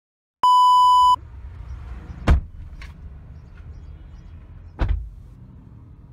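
A loud steady censor bleep tone that cuts off about a second in, then the low rumble of a car with two sharp knocks about two and a half seconds apart.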